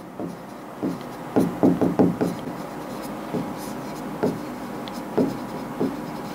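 Handwriting on a board: a run of short pen scratches and taps, quick together about a second and a half in, then a few single strokes spaced out.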